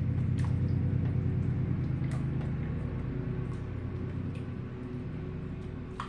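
A spoon stirring chicken tenders, diced onion, cream of chicken soup and broth in a crockpot: wet squishing with a few short clicks of the spoon against the crock.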